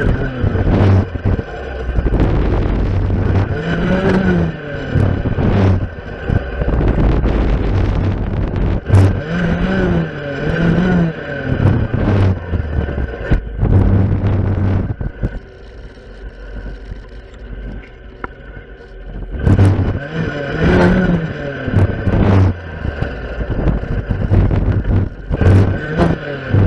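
Stihl FS 460 clearing saw's two-stroke engine revving up and down in repeated bursts as its circular blade cuts spruce saplings and undergrowth. It drops to a quieter idle for a few seconds past the middle, then revs hard again.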